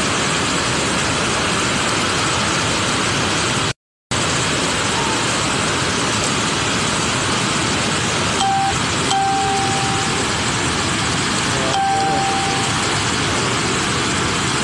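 Heavy rushing water of a flooded, muddy waterfall torrent: a loud, steady wash of noise. It cuts out briefly about four seconds in. About two thirds of the way through, three short steady whistle-like tones sound over it.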